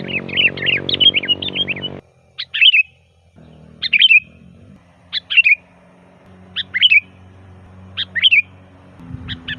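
Sooty-headed bulbul (kutilang) singing loudly: a rapid run of chirping notes for about two seconds, then short, sharp phrases repeated roughly every second and a half.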